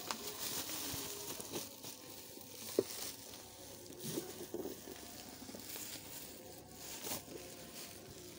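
Black bubble-wrap packing plastic crinkling and rustling as it is handled and pulled off a cardboard box, with one sharp tap a little under three seconds in.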